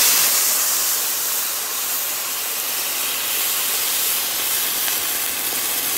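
Hot water poured into a pan of rice toasted in oil with onion and garlic, hissing and sizzling as it boils up against the hot pan. The hiss is loudest at the start, then holds steady.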